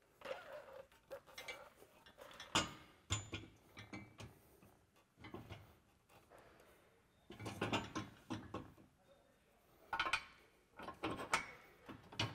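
Steel sprayer boom clanking and rattling against its metal mount as it is shifted by hand into place for its pins. The knocks come in irregular clusters, with a quieter spell in the middle.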